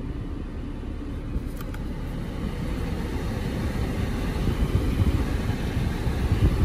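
Audi A6 C7 cabin with the engine running and the air conditioning blowing: a steady low rumble that grows a little louder toward the end. The AC is working properly with a newly replaced pressure sensor.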